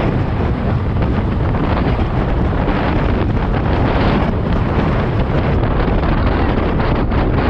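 Steady, loud wind noise buffeting the microphone of a camera on a road bike moving at about 46 km/h.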